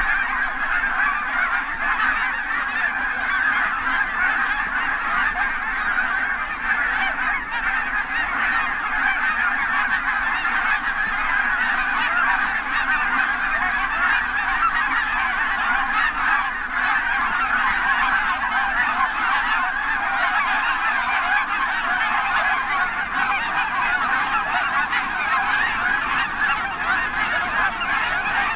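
A large flock of geese calling together: a dense, unbroken chorus of honking that holds steady throughout.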